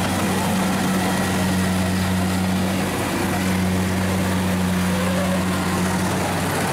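Kubota DC-70 rice combine harvester running steadily while it cuts standing rice, its engine giving a constant low drone over the whirr of the header and threshing gear.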